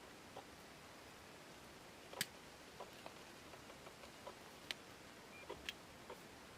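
Faint, scattered light clicks and taps of small hard parts being handled, about a dozen irregular ones, the sharpest about two seconds in, with a short faint beep about five and a half seconds in.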